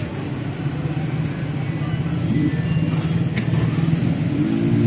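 Road vehicle running with a steady low rumble.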